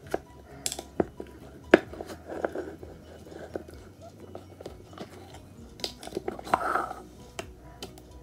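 Fingers poking and squeezing slime: a string of sharp clicky pops and wet squelches, the loudest pop about a second and three-quarters in and a longer squish around six and a half seconds in.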